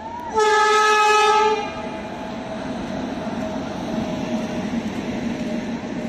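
Horn of the 13233 Intercity Express's locomotive sounding one blast of about a second, loud and steady in pitch. It is followed by the steady rumble of the train's coaches running past.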